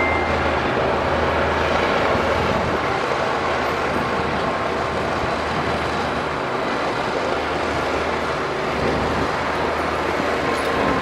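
Heavy diesel earthmoving machinery running steadily, a low engine drone under a broad rushing noise.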